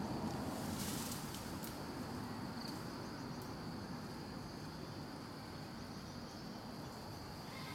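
Insects calling in one steady, unbroken high-pitched drone, over a low background rumble of outdoor noise.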